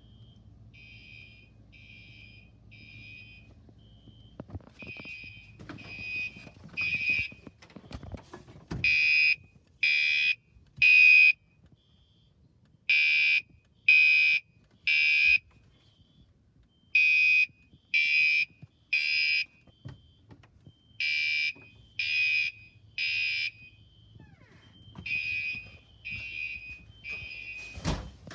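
Fire alarm sounding the temporal-3 evacuation pattern: three high-pitched tones about a second apart, then a pause, repeating over and over. Faint at first, it is loudest in the middle and softer again near the end.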